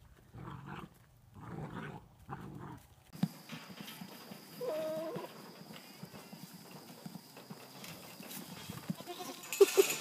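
Three short animal cries in the first three seconds, then a single short goat bleat about five seconds in. Scattered knocks and scuffles come from goats playing with a large inflatable ball, with a sharp louder knock near the end.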